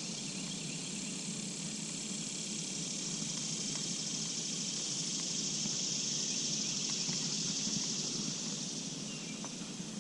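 A steady high-pitched insect buzz that swells toward the middle and eases off near the end, over a faint low hum.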